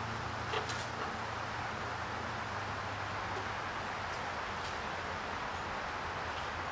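Outdoor ambience: a steady low hum under an even hiss, with a few faint clicks.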